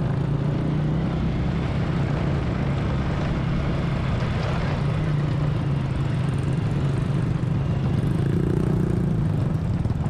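Motorcycle engine running steadily under way, with wind rushing over the microphone.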